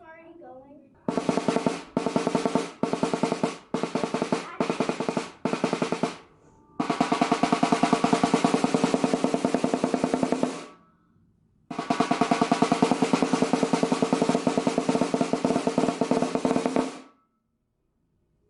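Rebuilt solid-wood stave snare drum being played: six short bursts of fast strokes, then two long rolls of several seconds each.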